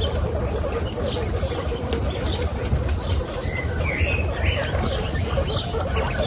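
Guinea pigs chewing raw carrot close to the microphone: a steady, crackly nibbling, with birds chirping in the background a few times in the second half.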